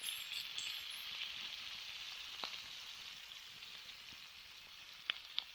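Slab bacon frying over a campfire: a steady sizzling hiss, with one sharp pop about halfway through and two more near the end.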